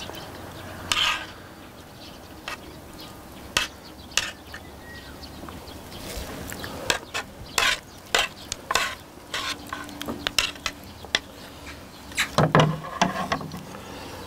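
Metal tongs and chopsticks clinking and scraping against ceramic plates and a large serving platter, in many short, irregular clicks while braised sea squirt and its sauce are scooped out. A louder, short low sound comes near the end.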